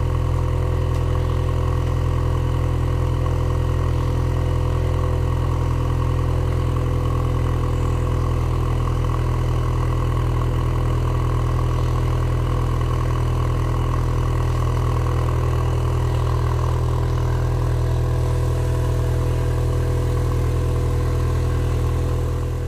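Car engine idling steadily, heard at the exhaust pipe, with a deep, even low note.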